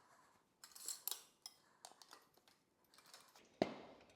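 Steel tyre irons clinking and scraping against a wheel rim as the tyre bead is levered on in small steps, with a sharp knock about three and a half seconds in.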